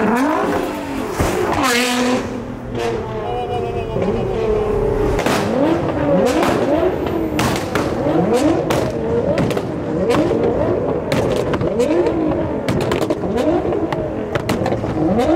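Sports car engines being revved hard on the move, the pitch climbing and dropping again about once a second, with sharp exhaust pops and crackles throughout over road and tyre noise.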